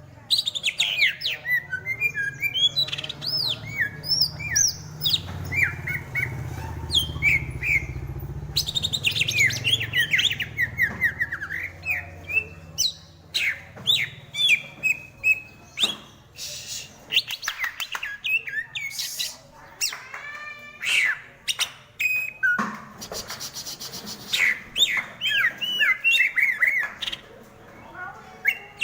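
Greater green leafbird (Chloropsis sonnerati) singing a long, fast run of varied whistled notes that slide up and down, broken by short chattering phrases.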